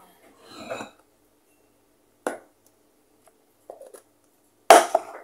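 Light kitchen handling sounds around a plastic food container of raw pork and a bottle: a single sharp click about two seconds in, a few faint knocks, then a louder, brief rustling burst near the end.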